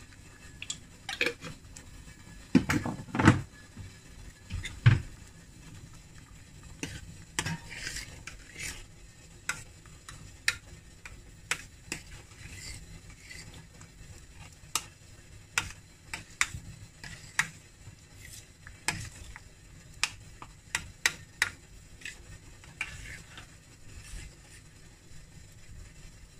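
Steel ladle stirring sambar in a stainless steel pressure-cooker pot, clinking and knocking irregularly against the pot's sides, with the loudest knocks in the first five seconds.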